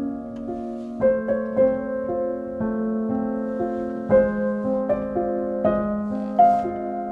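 Background piano music with slow, held notes.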